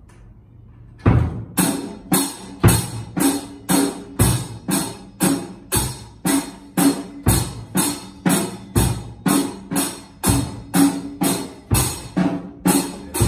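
Drum kit played in a steady beat of about two strokes a second, starting about a second in, with cymbals and drums struck together on the strokes.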